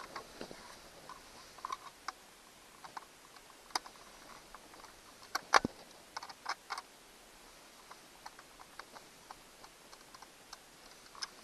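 Irregular small clicks and taps of the plastic clock housing and a screwdriver being handled while the unit is taken apart, with the loudest knock about five and a half seconds in.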